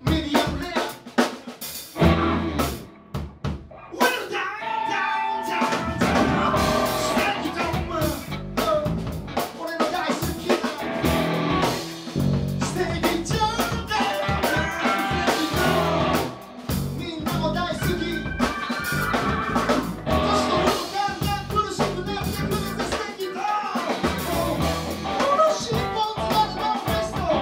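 Live rock band playing: drum kit, electric bass, electric guitars and keyboard, with a male vocalist singing into a microphone. It opens with a few separate drum hits before the full band comes in about two seconds in.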